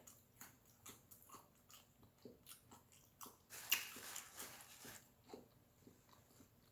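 A person chewing and biting food close to the microphone: faint, irregular crunches and mouth clicks, with one louder crunch a little past halfway.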